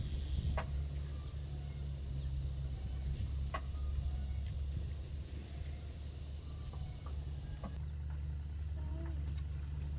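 Insects trilling steadily at one high pitch over a low, steady rumble, with a few faint clicks scattered through.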